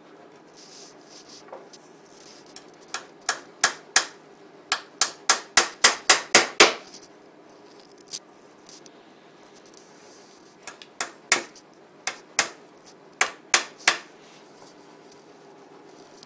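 Hammer driving small nails through the top and bottom bars into the side pieces of a wooden Langstroth beehive frame. The taps come in quick runs of sharp strikes with short pauses between the nails.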